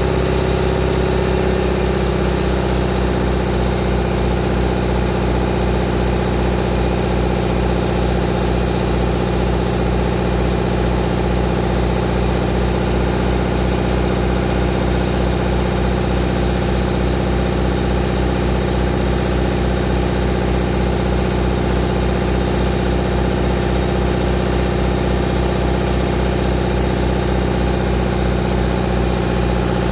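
1965 Owens generator's engine running steadily at a constant speed on a mix of compressed hydrogen and oxyhydrogen (HHO) gas.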